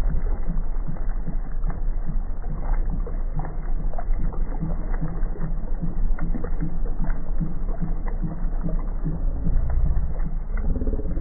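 Dull, muffled low rumble of a boat on the water, with a faint steady pulsing and small splashy ticks; nothing high-pitched is heard.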